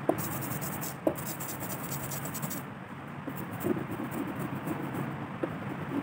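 Rubber brayer rolled through tacky printing ink on an ink slab, then over a carved woodcut block, making a fine crackling hiss that stops about two and a half seconds in. A few light knocks from the roller and its handle come through.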